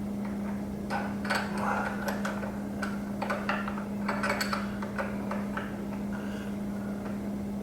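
Irregular metallic clinks and taps of hand wrenches on a 48RE transmission's band adjuster, as the adjusting screw is held and its locknut tightened. The clinks fall from about a second in to about six seconds, over a steady low hum.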